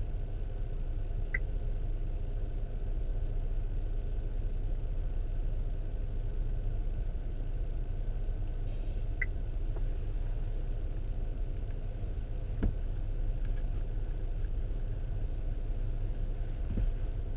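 Steady low rumble inside a stopped vehicle's cabin, with a faint short beep about a second in and again around nine seconds, and a single click past the middle.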